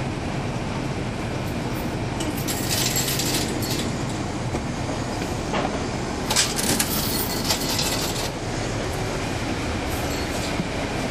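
Cabin sound aboard a 2012 NABI 416.15 transit bus: its Cummins ISL9 diesel engine running with a steady low drone. Bursts of rattling and clattering come about two seconds in and again from about six to eight seconds in.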